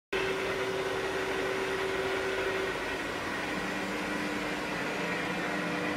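Steady hum and whine of running machinery, with the whine dropping to a lower pitch about three seconds in.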